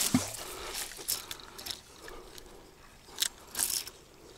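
Dry reeds and grass rustling and crackling as a fishing rod and spinning reel are handled among them, with a short knock just after the start and two louder rustles a little over three seconds in.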